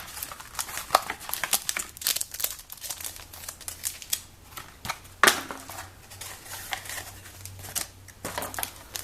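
Plastic blister packaging and foil booster packs being handled, crinkling with many small clicks and crackles, and a sharper crackle about five seconds in.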